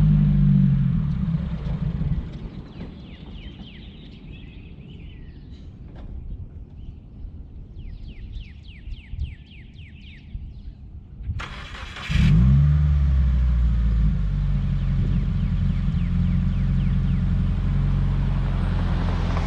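2017 Subaru WRX turbocharged flat-four running and then dying about two seconds in; near the middle there is a quieter stretch, then the starter cranks briefly and the engine catches and runs on at idle. The stalling and rough running are what the owner suspects to be a boost or vacuum leak after a charge pipe and top-mount intercooler install.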